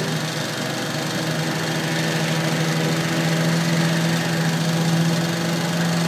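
Kenworth logging truck's diesel engine running steadily at a constant speed, driving its self-loading hydraulic crane: an even, unbroken hum.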